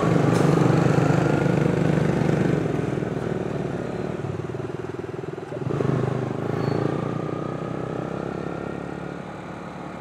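Motorcycle engine accelerating through town traffic twice, the pitch climbing each time: first right at the start, when it is loudest, and again about six seconds in.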